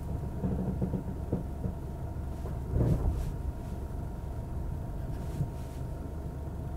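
Toyota Hilux's 2.4-litre four-cylinder diesel idling with a steady low hum, with a few dull thuds, the loudest about three seconds in.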